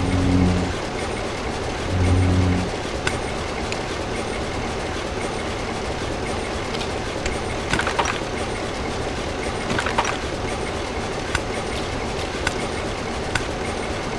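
Steady vehicle-like rumble, with two short low tones about two seconds apart near the start and scattered light clicks after.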